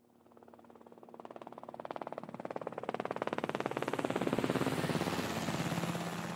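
Intro sound effect: a rapid, even pulsing buzz with a low hum under it. It builds steadily louder over the first few seconds, then holds.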